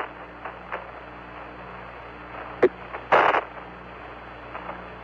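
Hiss and low hum of the Apollo 11 air-to-ground radio link between callouts, broken by sharp crackles of static, one short and one longer, about two and a half and three seconds in.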